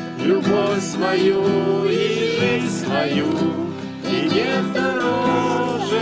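Acoustic guitar played while a group of voices sings a song together.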